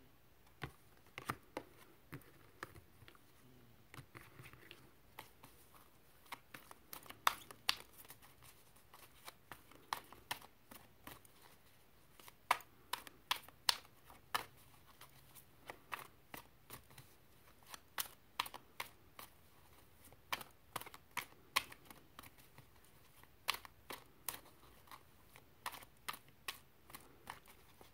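Tarot cards being handled and shuffled: a run of small sharp clicks and taps, irregularly spaced, some louder than others.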